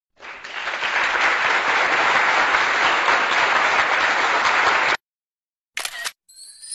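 A crowd clapping and applauding, coming up over the first second and cutting off abruptly about five seconds in. A short burst of noise follows about a second later, and a rising swoosh begins right at the end.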